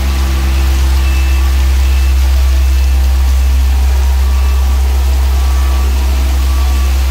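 Tandem drum road roller's diesel engine running steadily as it rolls over fresh asphalt, with a deep, constant low hum and heavy rain hissing over it.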